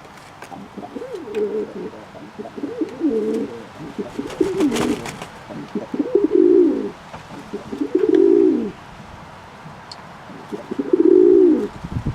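Domestic pigeons cooing: a series of low, drawn-out coos, with a brief rustle about five seconds in.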